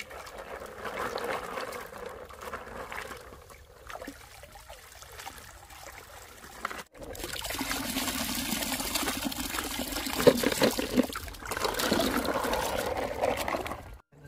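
Hands splashing and sloshing in shallow stream water while rinsing a red mesh bag and a basin. The splashing turns louder and busier about halfway through, with a few sharper splashes.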